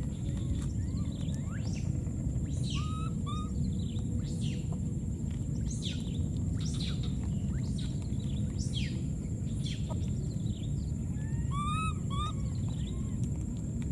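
Outdoor ambience: steady low noise with a constant high-pitched tone, over which birds give many short, high chirps that fall quickly in pitch. A few lower squeaky calls come about 3 s in and again near 12 s.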